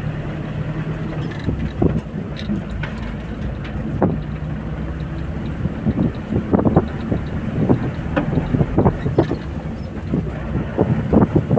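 Vehicle engine running steadily, heard from inside the cab while driving along a bumpy dirt track. Many short knocks and rattles come over it, few at first and thick in the second half.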